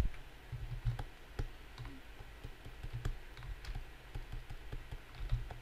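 Computer keyboard keys clicking now and then, irregular single clicks over a low steady hum.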